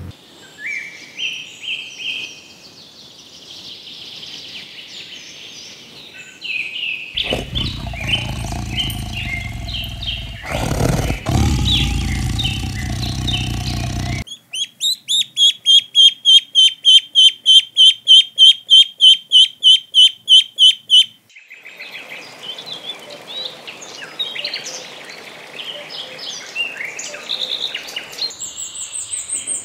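Birds chirping and calling. In the middle a low rumble sits under the chirps for several seconds, then a loud high call repeats about two and a half times a second for several seconds.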